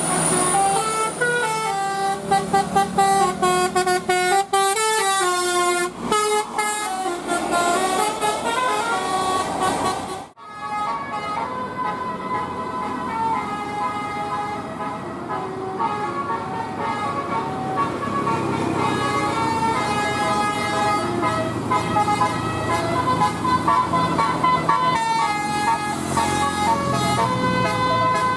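Basuri telolet multi-tone bus horns playing a tooting melody, the notes stepping up and down in pitch, with bus engines running underneath. The sound breaks off abruptly about ten seconds in, then the horn tones carry on over louder engine rumble.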